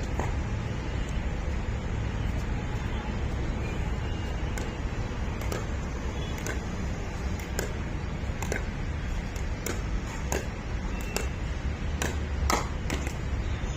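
Pickleball paddles hitting a plastic ball in a volley exchange: sharp pops, sparse at first, then about one a second from roughly four seconds in, over a steady low rumble.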